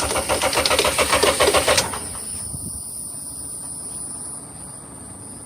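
Honda Civic engine cranking over on the starter in a quick, even rhythm without catching, then stopping about two seconds in. It is a no-start: the engine turns but does not fire, which the men suspect is a fuel or ignition problem.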